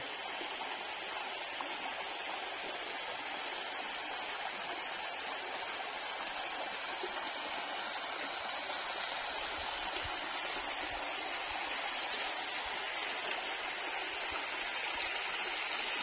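Shallow stream running over rocks: a steady rush of flowing water, growing slightly louder toward the end.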